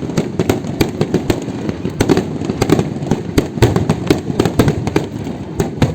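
Fireworks display going off: a dense, irregular barrage of sharp bangs and crackling pops, several a second, over a continuous rumble.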